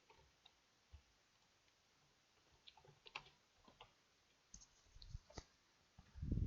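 Faint, irregular clicks of a computer keyboard and mouse being operated, in small clusters, with a soft low thump near the end.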